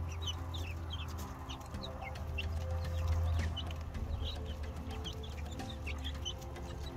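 Flock of young olive egger chickens peeping and chirping, many short high calls overlapping, over a steady low hum.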